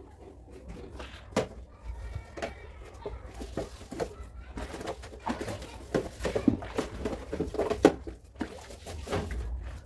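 Scattered knocks and clatter of things being handled, with a bird cooing in the background.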